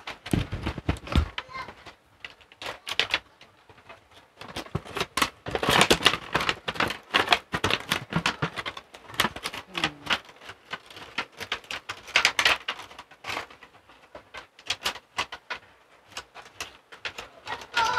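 Clear plastic packaging tray and cardboard box being handled and packed together: a dense run of crinkles, clicks and taps.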